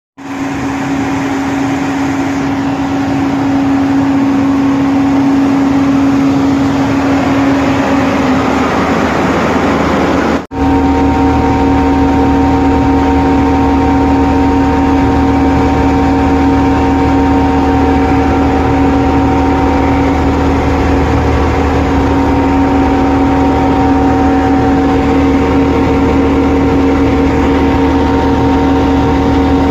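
Engine of heavy construction machinery running steadily under load, with a steady whine over the rumble; the sound drops out for an instant about ten seconds in.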